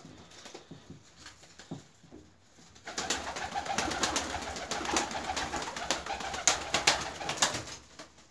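Male Turkish tumbler pigeon cooing, starting about three seconds in, with scattered sharp clicks and scratches over it.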